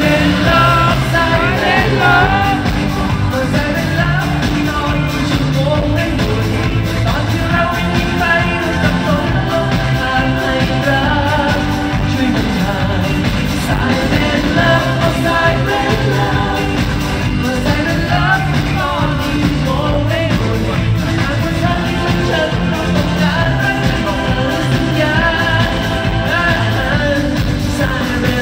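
Live concert music with a lead singer over a steady bass beat, recorded from the audience in a large arena.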